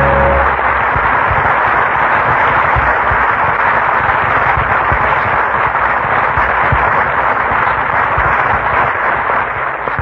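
Studio audience applauding steadily, fading out near the end.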